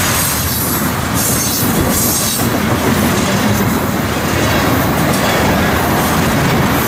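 Freight train's oil tank cars rolling past close by: a loud, steady rumble of steel wheels on the rails, with a few sharper knocks in the first couple of seconds.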